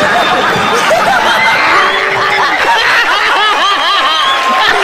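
A group of people laughing loudly together, many overlapping laughs at once, with hands clapping.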